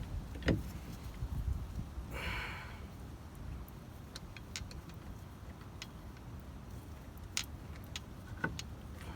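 Light metallic clicks and taps, a handful scattered through, from a hub bolt being threaded by hand into a rear wheel hub assembly, over a low steady background rumble.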